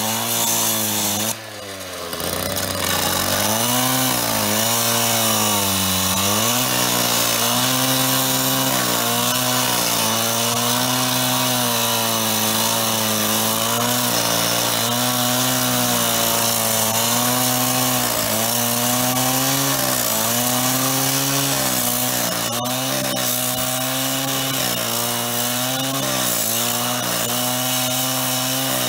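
A power cutting tool running under load as it cuts through the steel screws on the back of a payphone. Its motor pitch sags and recovers every second or two as it bites. The sound drops off briefly about a second and a half in, then picks up again.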